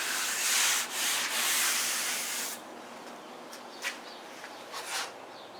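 Sandpaper being rubbed by hand over cured body filler on a car body panel, a steady scratching of strokes that stops about two and a half seconds in, followed by a few short, lighter scrapes.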